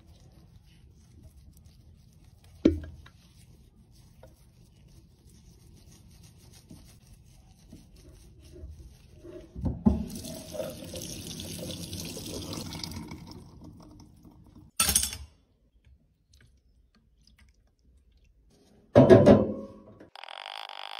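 Wet squishing as a soapy makeup sponge is squeezed and kneaded by gloved hands, with a sharp knock about three seconds in. About ten seconds in, tap water runs onto it for a few seconds. After that come a couple of loud bumps and a short steady tone near the end.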